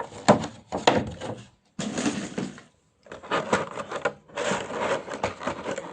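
Plastic toy packaging being handled and unwrapped: bouts of rustling and crinkling with sharp clicks and knocks of small plastic pieces.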